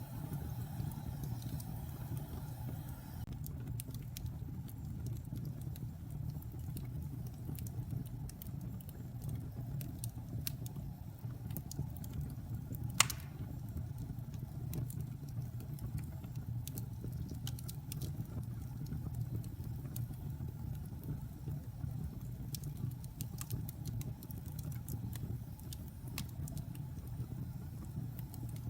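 Fire burning with a steady low rumble and scattered crackles, and one sharp, much louder pop about halfway through.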